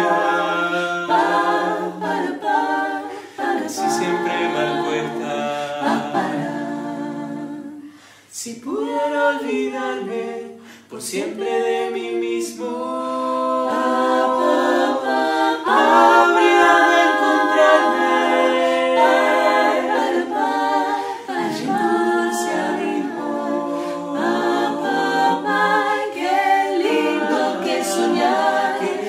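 A five-voice mixed a cappella group of men and women singing in close harmony, with no instruments. About eight seconds in the voices drop away briefly, come back with sliding pitches, then build to a fuller, louder chord.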